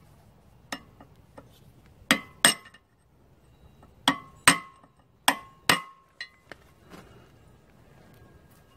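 Hammer blows on a steel drift held against the gib key on the crankshaft of an International 3 HP Type M flywheel engine, driving the key out of the flywheel hub. The strikes ring sharply and come in three pairs of hard blows, followed by a few lighter taps.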